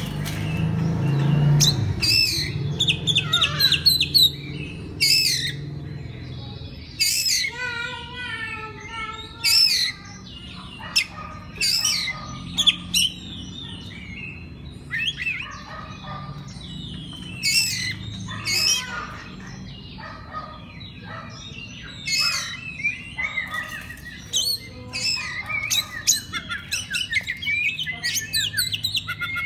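Oriental magpie-robin (kacer) singing a long, varied song of sharp chirps, warbled whistles and harsh buzzy phrases in quick bursts with short pauses, over a faint low hum.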